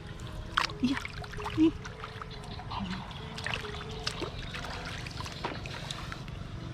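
Water trickling, with many short sharp clicks and knocks over a steady low hum.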